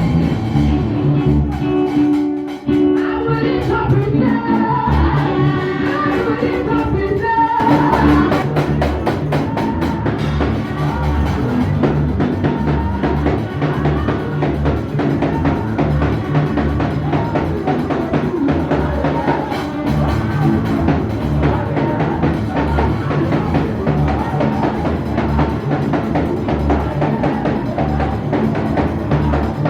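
Praise music with singing and a drum kit over a steady beat. The singing stands out in the first several seconds, and the band fills in more densely after that.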